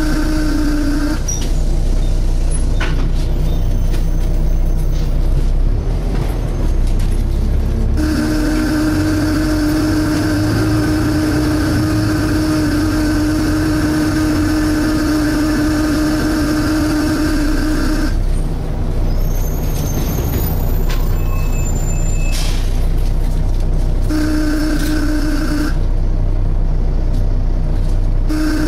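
Volvo B7TL double-decker bus running, heard from inside the saloon: a steady engine drone with the loud 'suction noise', a strong steady hum that cuts in and out. It sounds briefly at the start, runs from about 8 to 18 seconds in, and returns briefly near the end.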